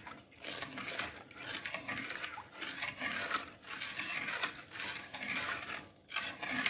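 Steel ladle stirring a runny apple halwa mixture in an iron kadai, sloshing and scraping against the pan in strokes about once a second.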